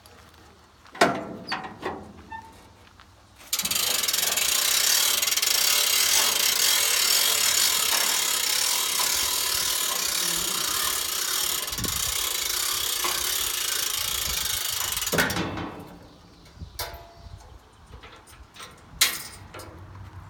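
Hand-crank ratchet winch on a branch chipper's conveyor being wound, the pawl clicking in a fast, continuous rattle for about twelve seconds as the conveyor is folded up, with a few metal clanks of the frame before and after.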